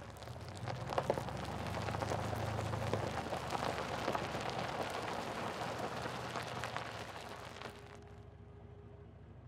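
Steady rushing road noise of a vehicle driving on a wet, slushy road: tyre hiss and wind with scattered crackles. It cuts off abruptly near the end.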